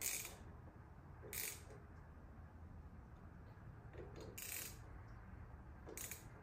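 Faint metallic clicks and rattles of a hand tool working on a motorcycle's handlebar lever perch as its clamp bolts are tightened, in four short bursts spread unevenly over several seconds.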